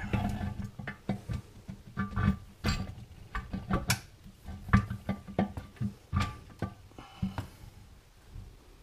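Irregular metal clunks and knocks from the cast-iron hydraulic control unit of a Farmall Super M Lift-All being rocked and shifted on its reservoir while it is worked onto the control-rod pin by feel. The knocks die away near the end.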